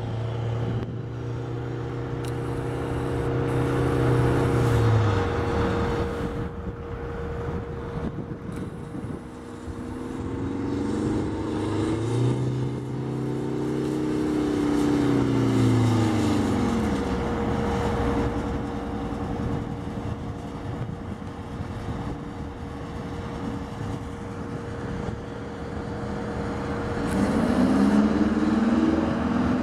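Airport fire trucks driving past, their heavy engines swelling three times, each time the engine note rising and then falling away. A steady hum runs underneath throughout.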